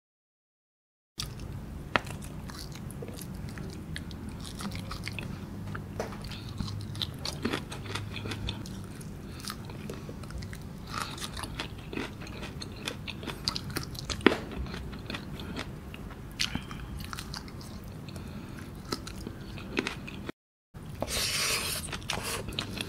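Close-miked chewing of a mouthful of rice and grilled fish, with wet mouth clicks and small crunches throughout. The sound drops out completely twice, briefly at the start and again near the end. It gets louder and crunchier just before the end.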